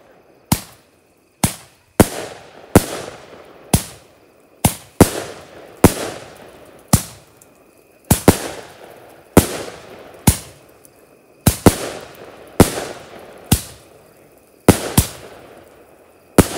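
Fireworks going off: a string of about twenty loud, sharp bangs at uneven spacing, roughly one a second and sometimes two in quick succession, each trailing off in a rolling echo.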